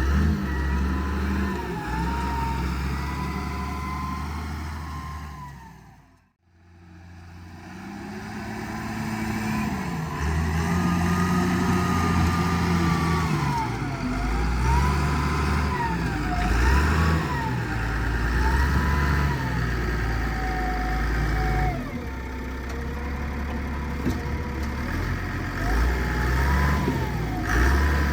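Wheel loader's diesel engine revving up and down again and again as it works, with a whine that rises and falls along with it. The sound dips out briefly about six seconds in.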